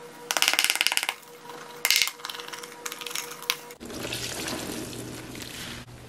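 Powdered cleanser shaken out of cardboard canisters in quick rattling bursts, the loudest about half a second in and again near two seconds, with scattered lighter taps after. About four seconds in, a wet, powder-caked sponge squeezed in gloved hands takes over: a steady, wet crackling hiss.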